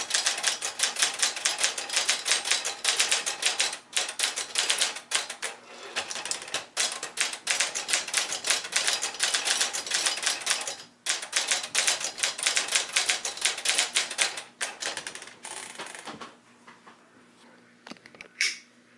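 Brother Echelon 99 typewriter being typed on fast, a dense run of key strikes broken by a few short pauses. The typing stops about three-quarters of the way through, leaving a faint steady hum, and a brief ringing tone sounds near the end.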